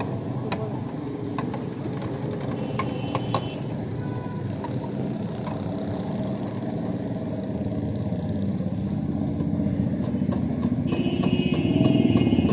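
Fries deep-frying in a street-cart fryer, the metal skimmer clicking and scraping against the wire basket, over steady street traffic. Near the end a high, buzzing vehicle horn sounds.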